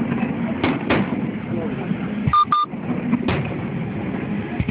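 Aerial fireworks shells bursting, several sharp booms a second or more apart over a crowd's chatter. Two short high beeps sound in quick succession about halfway through.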